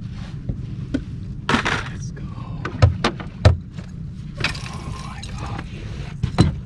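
Handling noise as a landing net is grabbed and swung out from a boat: clicks, knocks and rustling, with two heavy thumps about three seconds in, over a steady low rumble.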